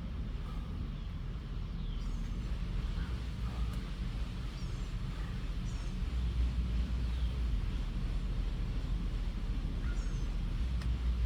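Outdoor ambience: a steady low rumble, with a bird giving short, falling chirps a few times.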